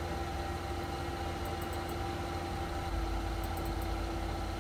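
Steady low background hum with a faint held tone, and a few faint light clicks about a second and a half in and again about three and a half seconds in.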